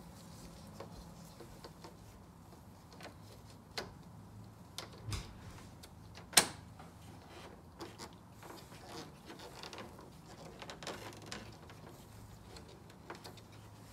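Scattered light clicks and taps of a plastic grill trim piece being handled and fitted into a car grill, the sharpest about six seconds in, over a faint steady hum.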